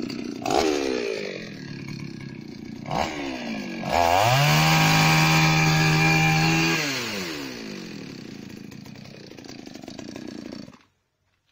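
Petrol chainsaw idling, revved briefly twice, then held at full throttle for about three seconds while cutting into a log lying flat on the ground, then falling back to idle. The cut is stopped as the bar starts to pinch in the log. The sound stops abruptly near the end.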